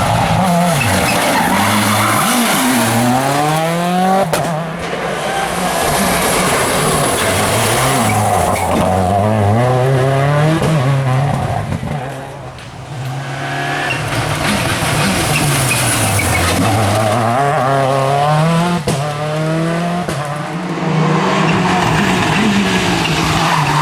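Seat Córdoba WRC rally car's turbocharged four-cylinder engine revving hard: its pitch climbs and drops again and again as it accelerates and lifts, with a brief quieter lift about halfway through.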